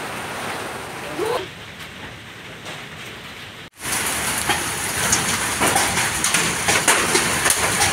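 Hailstorm with heavy rain pelting a lawn: a dense hiss studded with many sharp little hits of hailstones, coming in abruptly just under four seconds in. Before that, a softer steady hiss with a brief rising chirp about a second in.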